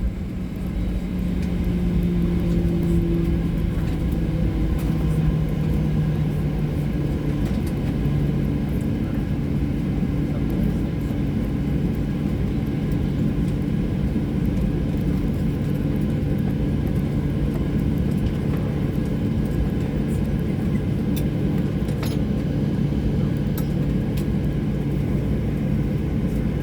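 Cabin noise of a Boeing 737-800 taxiing after landing: a steady rumble with the low hum of its CFM56 engines at idle, which steps down in pitch over the first several seconds and then holds, with faint cabin rattles.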